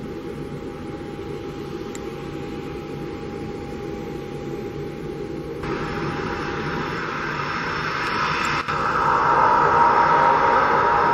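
De Havilland Canada DHC-6 Twin Otter's twin Pratt & Whitney PT6A turboprop engines running as the aircraft taxis, a steady engine drone. It grows louder, with an abrupt jump in the higher sounds about halfway through.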